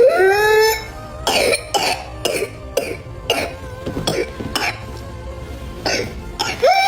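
Whooping cough (pertussis): a long rising whoop as breath is drawn in, then a string of short, sharp coughs about two a second, and another whoop near the end.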